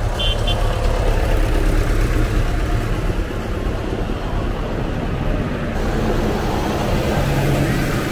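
Diesel tractor engines running as tractors drive past one after another in a procession: a steady low engine rumble.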